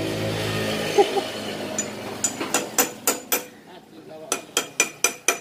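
Metal hand tool clinking against a Vespa's front wheel hub while it is being dismantled to reach the front wheel bearing: two quick runs of sharp metallic clinks, about five or six a second, each with a short ring. In the first second and a half a steady engine hum fades away.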